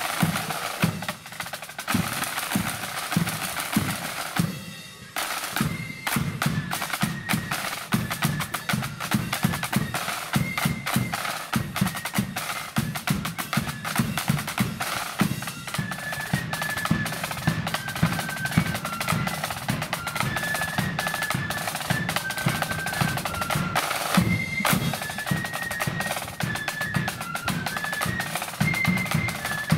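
Marching flute band: a rank of snare drums playing fast beats and rolls. After a short break about five seconds in, high flutes join with a marching tune over the drums.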